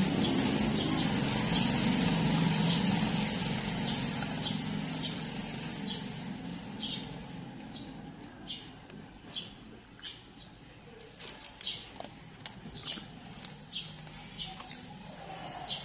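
A low engine hum fades away over the first few seconds. Then a bird chirps repeatedly, short high notes about every half second, with a few sharp crunching clicks from a dog chewing dry kibble.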